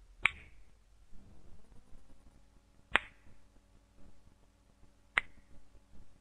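Three single finger snaps, spaced about two and a half seconds apart. Each snap marks another child dying from extreme poverty, one every few seconds.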